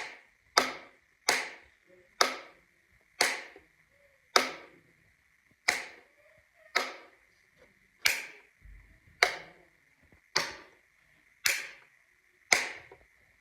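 Button clicking, about twelve sharp clicks roughly once a second at uneven spacing, each trailing off briefly. A faint steady high hum runs underneath.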